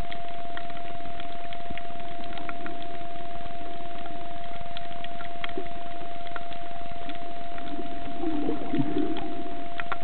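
Underwater sound picked up by a submerged camera over a reef: a steady hum with many scattered sharp clicks, and a low muffled swell near the end.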